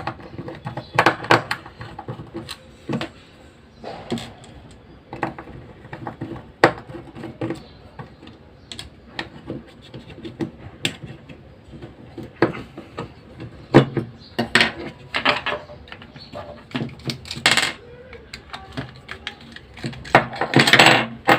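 Irregular small clicks, taps and knocks of a hair trimmer's plastic casing and small parts being handled and taken apart by hand, with a denser clatter near the end.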